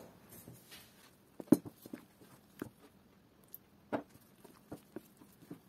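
A few scattered light clicks and taps of kitchen utensils against a stainless-steel mixing bowl of thick batter, irregularly spaced. The sharpest come about a second and a half in and again about four seconds in.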